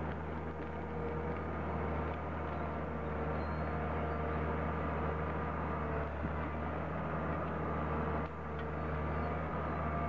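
Heavy machinery engine running steadily with a low hum and faint held whining tones above it. The sound changes abruptly just after 8 seconds in.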